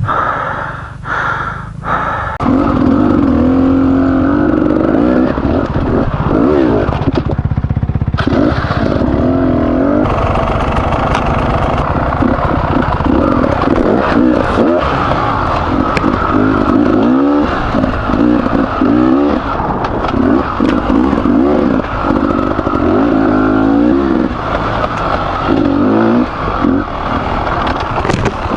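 Beta 300RR two-stroke enduro motorcycle engine, freshly rebuilt, revving up and down over and over while riding single track, with a brief easing off the throttle about seven seconds in.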